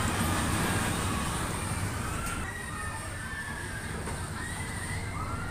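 Steel roller coaster train running along its track with a steady low rumble, and several high squeals that rise and fall in pitch.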